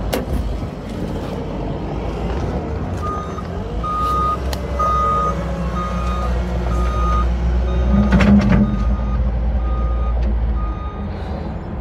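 A large vehicle's engine running with its reversing alarm beeping, one steady high beep repeating a little faster than once a second. There is a knock about eight seconds in, and the engine rumble drops near the end.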